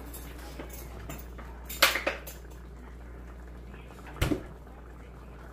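Kitchenware clatter: a quick cluster of clinks about two seconds in and a single sharp knock a little after four seconds, over a faint steady hum and light crackle from the sauce simmering in the pan.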